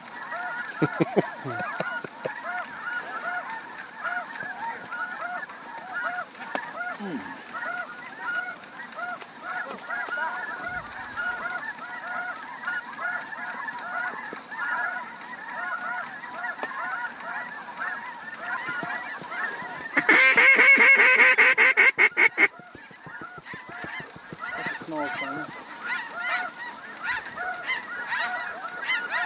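Snow geese calling: many overlapping high-pitched honks throughout, with a louder run of rapid honks about twenty seconds in that lasts two seconds.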